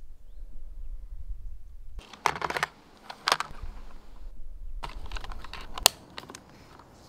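A low rumble, then a string of small plastic clicks and light scraping as a small wire connector is plugged into a flat battery pack and the pack is handled on a wooden table. The sharpest click comes near the end.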